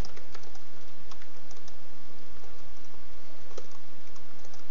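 Typing on a computer keyboard: irregular key clicks over a steady background hiss.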